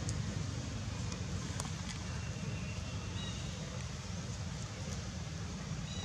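Steady low outdoor background rumble with a faint hiss above it and a few faint clicks.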